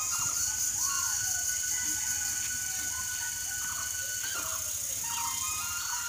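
Birds calling in short rising and falling chirps over a steady high-pitched insect drone, with soft background music.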